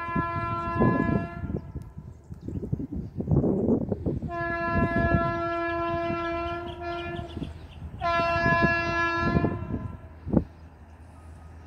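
Indian Railways locomotive horn sounding three times as a train approaches: a short blast, then a long one of nearly three seconds, then a shorter one. Low rumbles and thumps fill the gaps.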